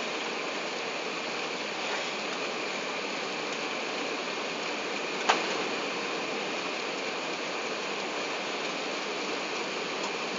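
Steady rushing cabin noise of an Airbus A380 on descent, heard from the upper deck: airflow and engine noise with a faint steady whine. A single sharp click sounds about halfway through.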